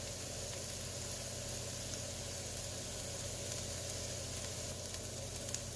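Diced onions sizzling steadily in butter and olive oil in a nonstick frying pan, browning over medium-high heat, with a fine crackle throughout. A few faint clicks come near the end as a wooden spatula stirs them.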